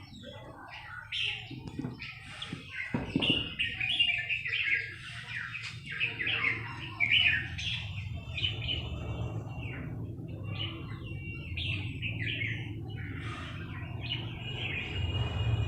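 Songbirds chirping and calling in quick, repeated short phrases, over a steady low hum that grows louder near the end.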